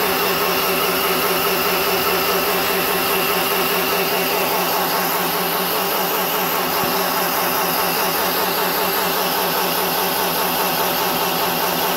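Razor electric dirt bike doing a burnout: its motor and drive whine steadily at one constant pitch while the rear tyre spins against a tiled floor, rubbing hard enough to smoke.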